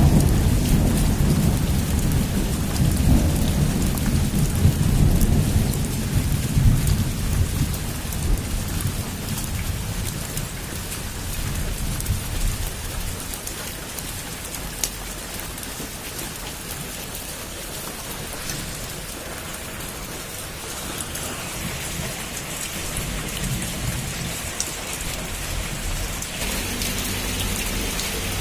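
Heavy rain falling on a rooftop in a steady hiss, with a long roll of thunder rumbling through the first six or seven seconds and fading away. Near the end the rain grows brighter and heavier.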